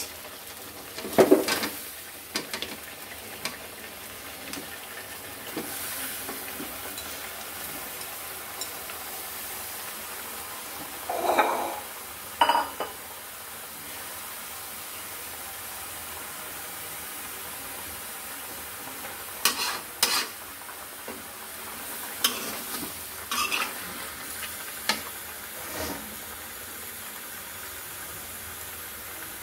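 Chunks of ash gourd frying with a steady sizzle in a wok of hot spiced oil, with a metal spatula clattering and scraping against the wok several times, loudest about a second in and again in clusters through the middle and later part.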